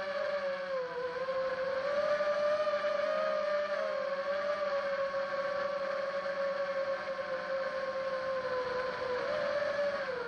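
Brushless motors of a ZMR 250 racing quadcopter with 2208 motors whining steadily in flight. The pitch wavers gently with throttle, dipping briefly about a second in and again near the end.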